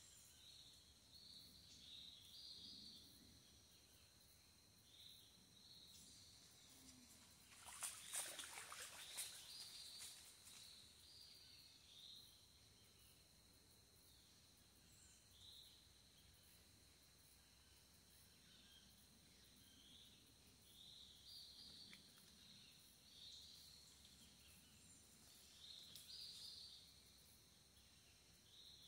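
Faint riverside ambience: short high chirps of birds or insects repeat throughout. A brief louder noisy burst about eight seconds in could be rustling or a splash.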